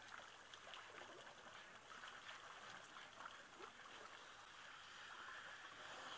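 Near silence: faint, steady outdoor background hiss.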